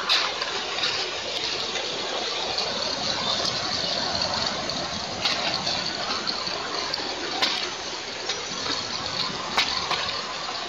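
Steady rushing wind noise, with a few short sharp clicks scattered through it.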